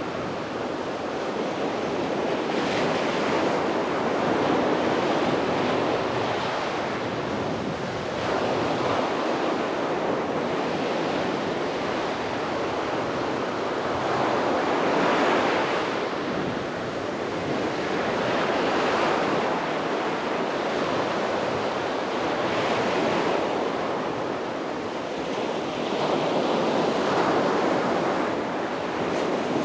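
Sea waves breaking and washing on a beach, a continuous surf that swells and eases every few seconds, with some wind on the microphone.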